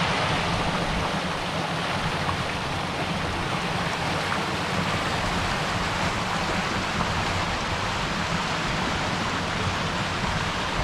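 Water rushing steadily over a small weir in a stream: a constant white-water splash.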